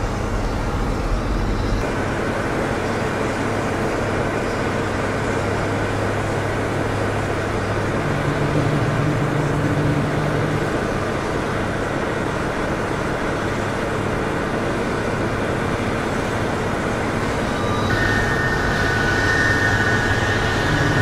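Jet turbine noise: a steady, dense rushing drone over a low hum. A high-pitched turbine whine comes in about three seconds before the end.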